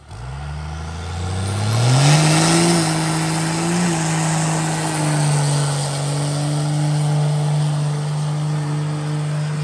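Ford Galaxie's V8 engine revving up hard over the first two seconds, then held at high revs through a burnout. A broad hiss from the spinning rear tyres runs underneath.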